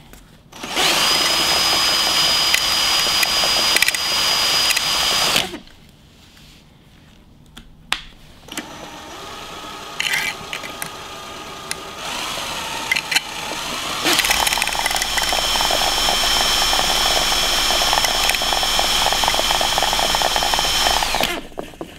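Cordless drill, set in reverse, spinning a homemade axial flux alternator rotor: a loud run with a steady high whine for about five seconds. After a short lull it runs more quietly for several seconds, then at full speed with the same whine again until just before the end.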